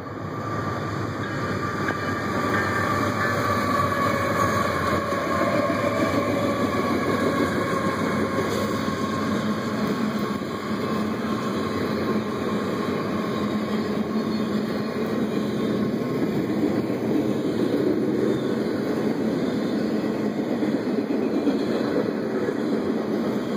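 CSX double-stack container train passing: the lead locomotives come closer and go by, then the long string of stack cars keeps rolling past with a steady rumble of wheels on rail. A high whine slowly drops in pitch over the first dozen seconds.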